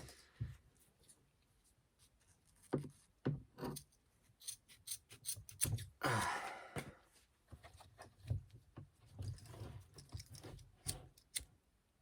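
Hands working the nylon webbing and hardware of kayak outfitting: scattered small clicks and rustles, with one longer rasping sound about six seconds in.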